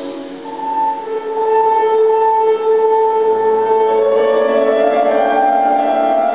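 A woman singing a long held note for several seconds, then rising to a higher note near the end, with piano accompaniment.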